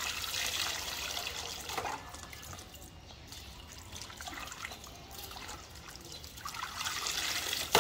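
Water pouring and splashing back into a plastic basin as a toy truck is lifted out dripping, then lighter sloshing and trickling as toy trucks are pushed about in the water, getting louder near the end.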